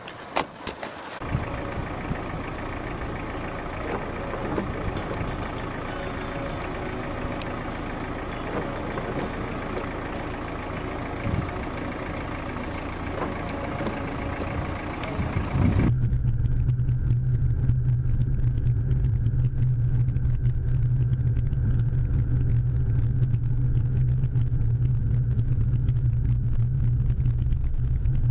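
A car engine running steadily with a few clicks at the start. About halfway through, the sound changes abruptly to the deep, steady drone of engine and road noise heard from inside the moving car.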